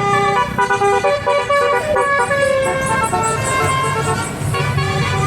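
Indonesian bus's telolet basuri musical horn playing a tune of stepping notes, with a bus engine running underneath and growing louder near the end.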